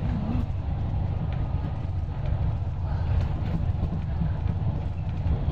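Steady low rumble of a bus's engine and tyres heard from inside the cabin while it cruises along the road.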